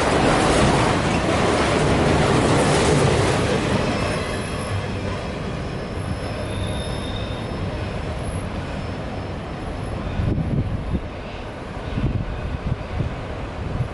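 Freight train's autorack cars rolling past close by, steel wheels running on the rails, loud for about four seconds and then fading as the end of the train moves away around a curve, with faint wheel squeal. Wind buffets the microphone near the end.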